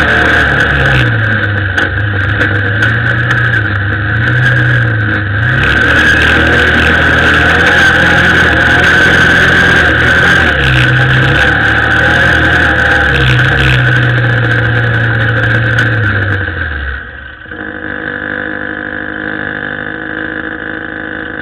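A vehicle's motor running while driving over sand, its pitch rising and falling with the throttle over a steady high whine. About seventeen seconds in it drops to a quieter, steadier running sound.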